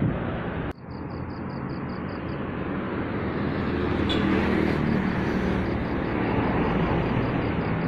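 Steady road-vehicle and traffic noise with a low engine hum, broken by a sudden cut about a second in.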